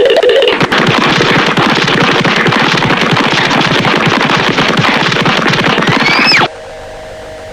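Cartoon sound effect: a loud, dense, rapid rattle like machine-gun fire lasting about six seconds, with a rising whistle just before it cuts off abruptly, leaving a faint steady hiss.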